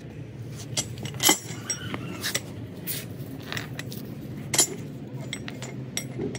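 Metal-on-metal clinks and taps with short ringing, the two loudest about a second in and again past four seconds, over a steady low hum.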